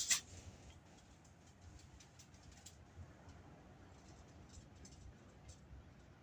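Faint, scattered light ticks and scratches of a marker drawing the cleaver outline on a steel saw blade, over a low hum.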